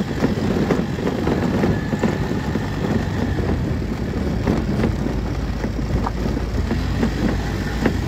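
RKS Azure 50 Pro 50 cc scooter running at riding speed on a gravel road, with the tyres crunching and small stones clicking.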